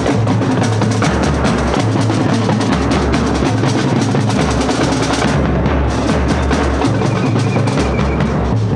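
Marching drumline playing at full volume: rapid snare drum rolls and strokes over bass drum beats, with sousaphones holding a low bass line that steps between notes.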